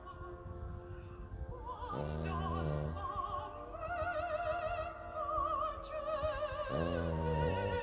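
Opera singing with wide vibrato playing throughout, with two loud, deep snores breaking in, the first about two seconds in and the second near the end, each lasting about a second.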